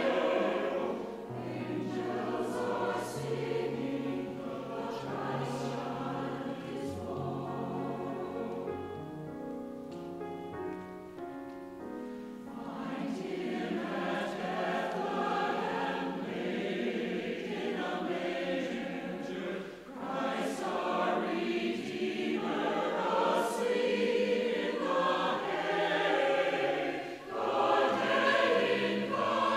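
A choir singing a choral piece. About eight seconds in the sound thins to quieter held notes for a few seconds, then the full choir comes back in.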